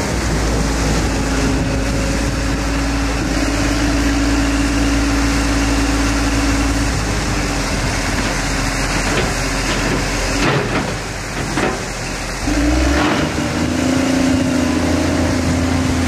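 Diesel engine of a New Holland W130 wheel loader running as it lifts and tips a grapple bucket of silage into a vertical TMR mixer wagon, with the tractor powering the mixer running alongside. The low steady engine hum dips for a couple of seconds past the middle, with a few faint knocks.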